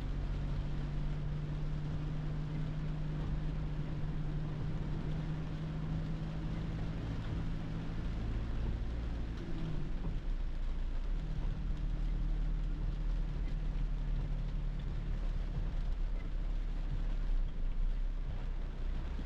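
Cab interior of a 2010 Toyota Hilux pickup on the move in heavy rain: a steady engine drone with tyre hiss on the wet road and rain on the body and windscreen. About halfway through, the engine note breaks off and returns a second or so later.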